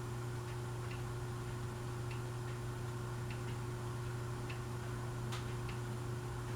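Harbor Breeze Pulsar ceiling fan running on medium speed: a steady low motor hum, with faint, regular light ticks about once or twice a second.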